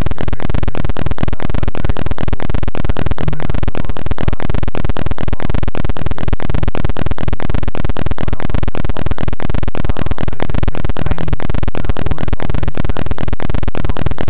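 Loud, harsh buzzing noise pulsing at a steady rate of about seven beats a second, unchanging throughout, with no voice in it: a broken, garbled audio signal on the video call.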